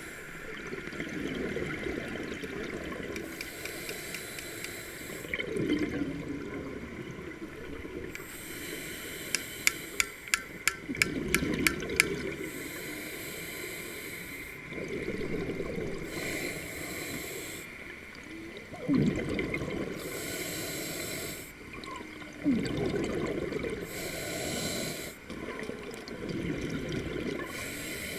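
A scuba diver breathing through a regulator underwater: a hissing inhale, then a bubbling, rumbling exhale, repeating about every four seconds. About ten seconds in there is a quick run of eight or so sharp clicks.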